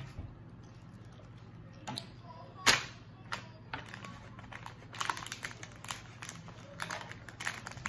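A child chewing gummy candy with her mouth closed: scattered sharp wet mouth clicks and smacks, the loudest about two and a half seconds in and a quick run of them around the fifth second, over a low steady hum.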